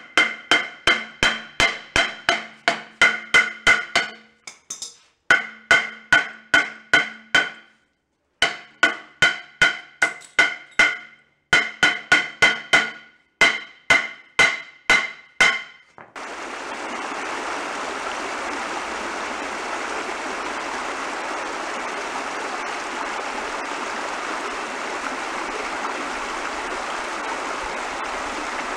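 Hammer blows on a rusted tractor brake drum that will not turn, three to four strikes a second in four runs with short pauses, the drum ringing after each blow. About sixteen seconds in, the hammering gives way to the steady rushing of a shallow, rocky stream.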